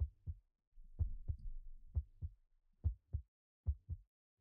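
Heartbeat sound effect: deep paired thumps, lub-dub, about one beat a second, quickening slightly.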